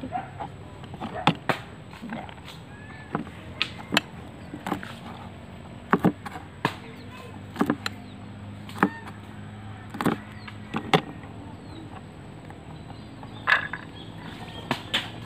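Cleaver chopping string beans on a plastic cutting board: sharp knocks at an uneven pace, sometimes two or three close together, with a pause of a couple of seconds near the end.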